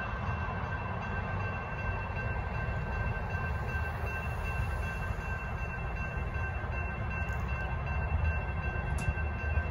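Railroad crossing warning bells ringing without a break while the crossing gates lower, heard as a steady high ringing over a continuous low rumble. The rumble grows a little louder near the end as cars pass.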